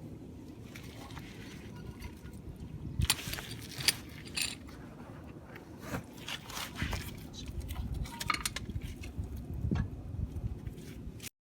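Metal clinks and scrapes, several in quick clusters, over a steady low rumble; the sound cuts off suddenly near the end.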